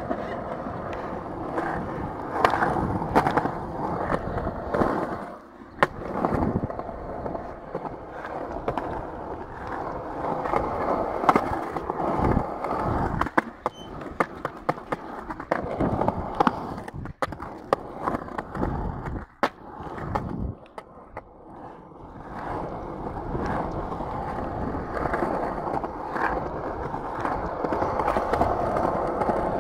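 Skateboard wheels rolling over painted concrete, a rough rumble that rises and falls with speed, with frequent sharp clicks and knocks from the board. It eases off for a few seconds about two-thirds through.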